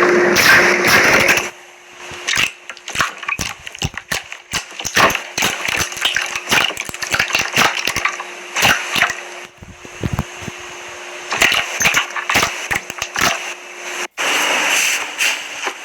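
Slime being squeezed and played with, giving a dense, irregular run of crackling pops and clicks. About fourteen seconds in it breaks off briefly and gives way to a smoother, more even squishing.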